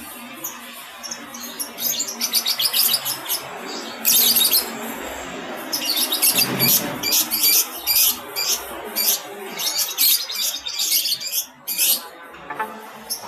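Several caged lovebirds chirping: quick runs of shrill, high-pitched chirps that come and go, densest from about four to eleven seconds in.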